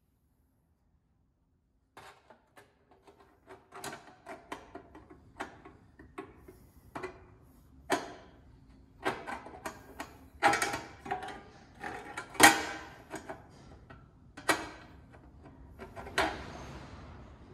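Metal clicks, clinks and knocks as a road-race baffle is handled and fitted into a metal Holley oil pan. The knocks come irregularly after about two seconds of silence, with the sharpest one about twelve seconds in.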